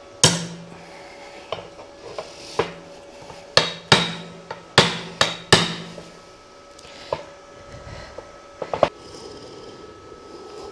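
Hammer blows on a freshly welded steel motorcycle kickstand, about a dozen strikes at uneven intervals with the metal ringing on after them. The part is being knocked back into line after welding heat pulled it out of shape.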